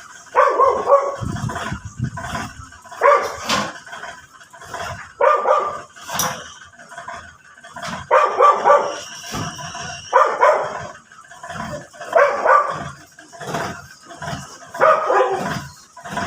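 A dog barking repeatedly, one short bout every second or two.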